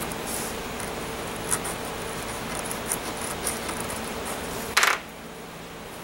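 Small hand tool picking and scratching at a dab of dried cement slurry on a work board: a few light ticks, then one louder, short scrape about five seconds in.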